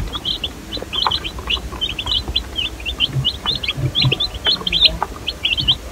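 A brooder full of baby meat chicks peeping: many short, high chirps overlapping, several a second.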